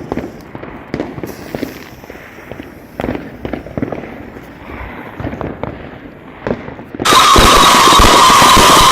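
Fireworks: scattered sharp pops and crackles. About seven seconds in, a sudden loud continuous hiss with a high whistling tone takes over.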